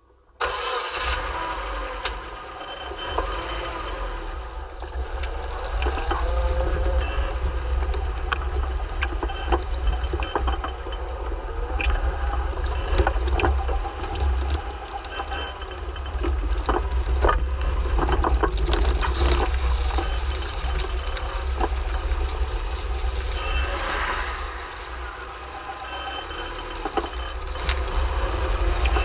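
Subaru Forester XT (SG, manual) driving at low speed, heard at the front nearside suspension: a steady low rumble with irregular sharp clunks and knocks, the low-speed front clunk whose cause is being sought. A 138k-mileage clutch creaks as well.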